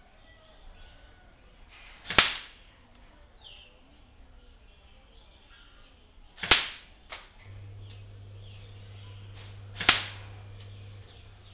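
Dboy BY-805T SCAR-H airsoft electric gun (AEG) firing three single shots, each a sharp crack about four seconds apart. A steady low hum comes in from about two-thirds of the way through until near the end.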